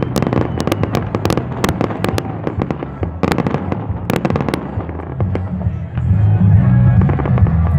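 Fireworks bursting overhead: many sharp cracks and pops, thickest in the first four and a half seconds. From about six seconds in, louder music with a heavy bass comes to the fore.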